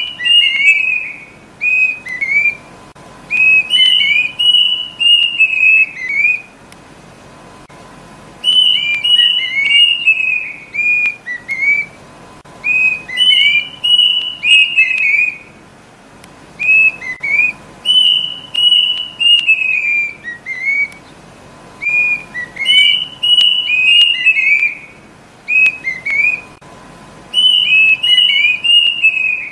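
Kedasih (Cacomantis cuckoo) song: phrases of clear whistled notes that slide downward, repeated about every four seconds.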